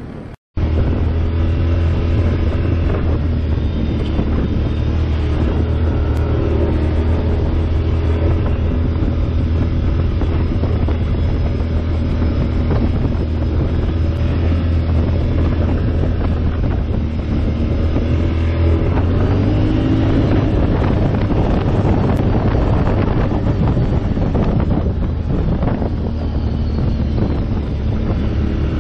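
ATV engine running steadily under way, a loud low drone, with the revs rising briefly about two-thirds of the way through. There is some wind on the microphone.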